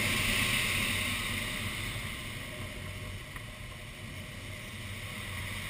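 Rush of air over the canopy of an ASK-21 glider, heard inside the cockpit. It fades as the glider slows over the top of a looping figure and builds again as the nose drops near the end.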